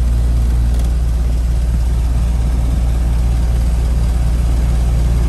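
R22 heat pump outdoor unit running, its compressor and condenser fan making a steady low hum with a whooshing haze over it.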